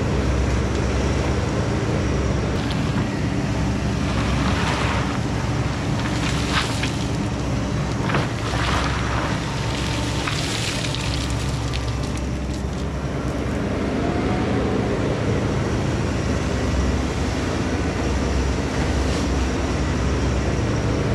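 Takeuchi TB2150 excavator's diesel engine running steadily under work, with several short bursts of rushing noise in the middle and a faint rising hydraulic whine later on.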